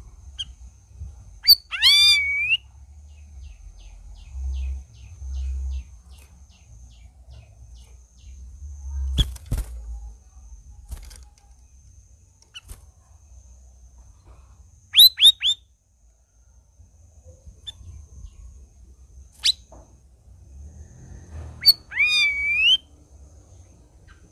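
Caged cucak rawis singing in loud, clear whistled phrases a few seconds apart: long swooping phrases near the start and near the end, and a quick run of three notes in the middle. A low rumble sits under the song.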